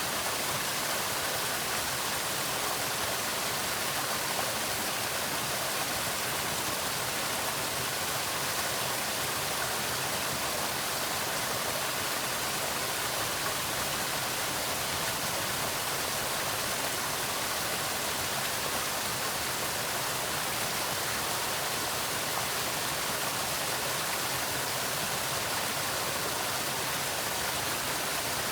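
Waterfall pouring steadily: a constant hiss and rush of falling water, unchanging throughout.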